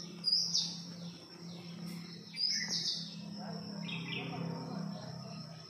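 Small birds chirping: quick high chirps that fall in pitch, about half a second in and again near two and a half seconds, then a few shorter notes around four seconds.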